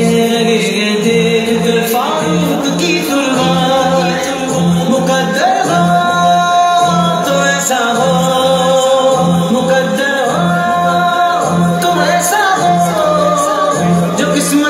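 A devotional tribute song: a singing voice holding long, gliding notes over a steady low beat of about two beats a second.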